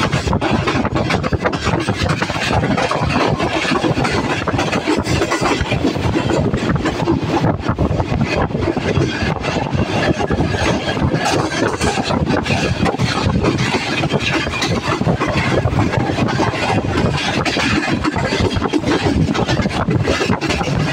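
Passenger train moving along the track, heard from an open coach doorway: a steady loud rumble with rapid clatter.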